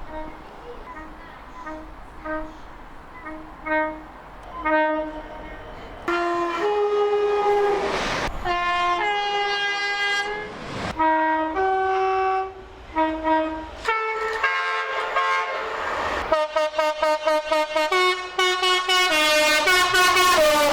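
Train horns sounded in a long string of blasts, the note jumping between a lower and a higher pitch. The first few notes are short and quieter. About six seconds in, long loud blasts begin, and near the end come rapid short toots, several a second.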